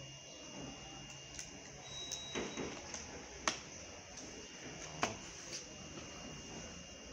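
Sharp little plastic clicks as a smartphone's housing is pressed along its edge and its clips snap into place. Three clearer clicks come a second or so apart in the middle, with softer ones between.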